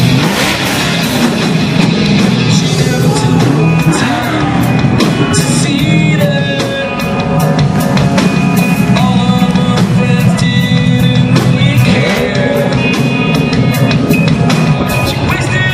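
Rock music with singing, drums and guitar.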